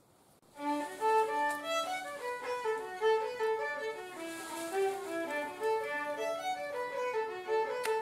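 Background fiddle music, a quick melody of short notes, starting about half a second in.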